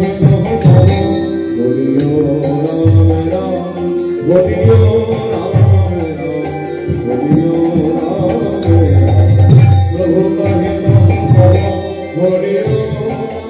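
Live Hindu devotional kirtan (Harinam sankirtan): group singing with held notes, a drum keeping a steady beat and bright hand cymbals clashing.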